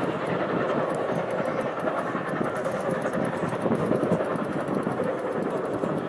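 Steam locomotive hauling a train past, a steady, continuous rush of exhaust and running noise.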